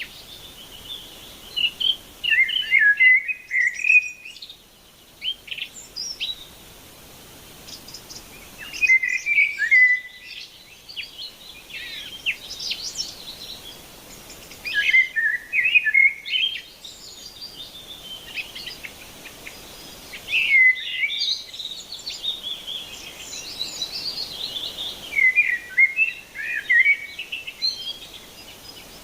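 Songbirds singing: bursts of quick, twittering chirps that recur about every five to six seconds, with scattered quieter chirps in between.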